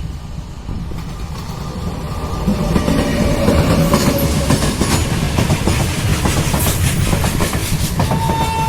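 Goods train hauled by a WAG-9 electric locomotive passing close by, its wheels clattering over the rail joints, getting louder about two and a half seconds in. A steady high tone comes in near the end.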